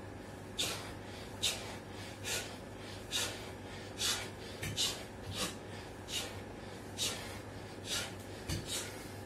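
A man breathing hard while doing push-ups: short, sharp, hissing breaths, about one a second, in time with the reps.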